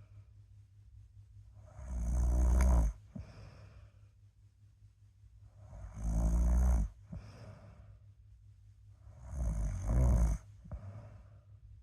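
Snoring in a slow, even rhythm: three loud snores about four seconds apart, each followed by a short, softer breath.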